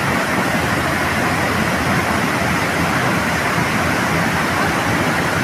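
Wide curtain waterfall pouring into a pool, a steady rush of water.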